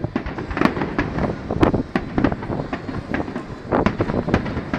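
Fireworks display: shells bursting in a quick, irregular string of sharp bangs and crackles, more than a dozen reports in a few seconds.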